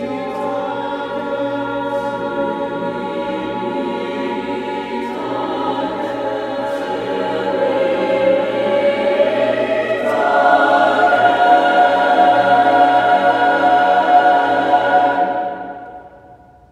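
Choir singing sustained chords that change about five seconds in and swell louder about ten seconds in; the final chord fades away near the end.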